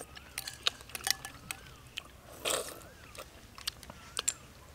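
People eating a soft jackfruit and coconut milk dessert with metal spoons from ceramic bowls: scattered small clicks of spoon on bowl and close mouth sounds of chewing, with a louder eating noise about two and a half seconds in.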